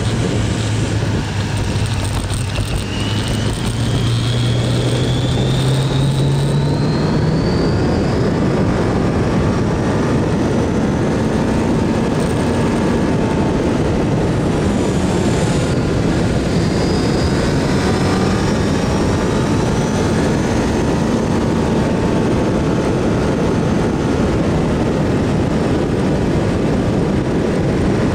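Kawasaki GPZ900R's inline-four engine running under way, heard from a bike-mounted camera under heavy wind noise. The engine note rises slowly as it accelerates, once in the first several seconds and again around the middle.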